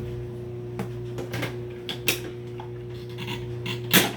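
Hard plastic parts of a canister vacuum being handled, giving a scatter of light clicks and knocks and one louder clack near the end, over a steady low hum.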